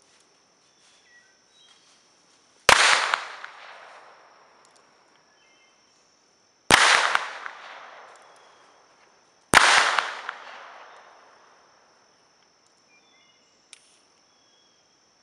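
Three pistol shots fired into the air, about three, seven and nine and a half seconds in, each a sharp crack with a long echoing tail. A steady high insect drone runs underneath, with a few faint bird chirps.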